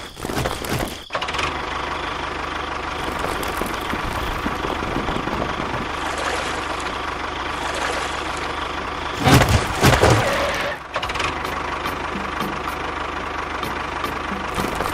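A small motor running steadily with a constant whine. About nine seconds in there is a louder burst lasting about a second, then the steady running continues.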